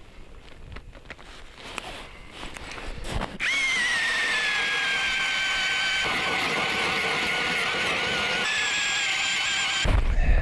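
Cordless drill turning an ice auger into the ice. The motor whine starts about three seconds in at a higher pitch, drops slightly as the auger bites, then holds steady for about six seconds before stopping with a low thump near the end.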